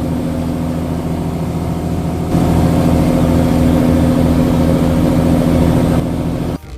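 Fishing boat's engine running with a steady hum, growing louder about two seconds in and cutting off abruptly near the end.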